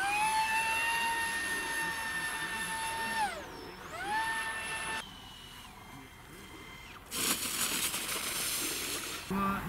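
Electric ducted fan of a 3D-printed RC jet whining at high power. The pitch rises into a steady high tone, dips and comes back about three and a half seconds in, and cuts off about two seconds in. A fainter whine then steps down in pitch, and near the end there are about two seconds of loud rushing noise.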